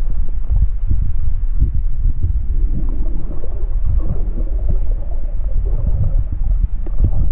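Underwater sound of a swimmer moving through lake water, heard through a waterproof action-camera housing: a heavy, muffled low rumble with irregular dull thumps, and a sharp click near the end.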